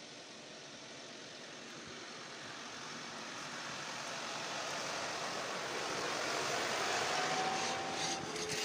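New Holland tractor pulling a plough, its engine getting steadily louder as it approaches and passes close by.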